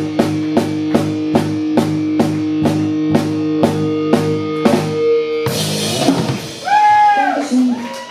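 Live rock band of drum kit, electric guitar and bass ending a song: drum hits about two and a half a second under a held guitar and bass chord, then a crash about five and a half seconds in, followed by a pitched note that slides up and then down.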